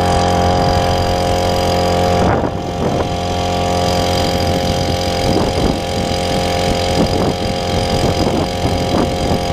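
Small 52cc two-stroke gasoline outboard motor running steadily at cruising speed, pushing an inflatable boat, heard close up from on board. Its level eases slightly about two seconds in.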